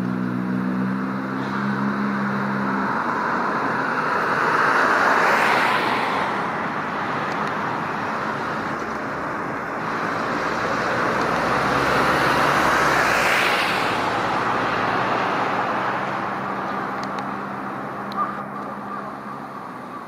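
Road traffic: two vehicles pass by, one about five seconds in and one about thirteen, each a rush of tyre and engine noise that swells and fades. A low engine hum is heard at the start.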